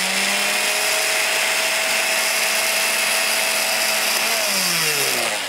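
Electric blender motor running steadily at full speed, blending a milkshake, then winding down with a falling pitch near the end as it is switched off.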